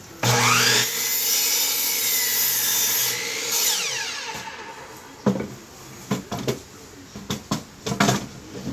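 A power woodworking tool starts suddenly with a rising whine, runs loud and steady for about three seconds, then winds down with a falling pitch. Several sharp knocks follow, of wood being handled.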